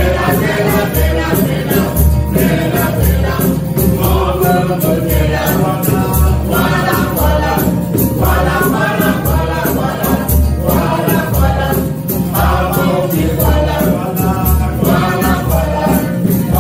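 A small group of mixed voices singing a song together, accompanied by acoustic guitar and a tall wooden hand drum keeping a steady beat.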